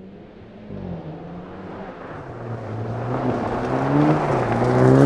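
Jaguar F-TYPE Convertible rally car's engine revving hard on a gravel road, its pitch climbing and dropping back at gear changes about a second in and again near the end, over gravel and tyre noise. It grows steadily louder as the car approaches.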